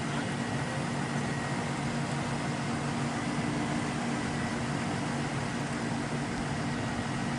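An engine idling steadily: an even low hum with no change in speed.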